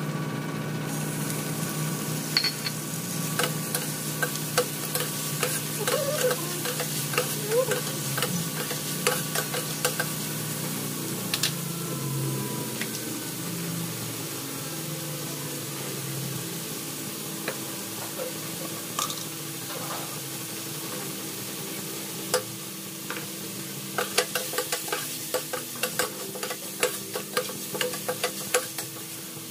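Onions and tomatoes sizzling in a stainless steel pan while a spoon stirs them, scraping and clinking against the metal in runs of sharp clicks near the start and again near the end, over a steady low hum.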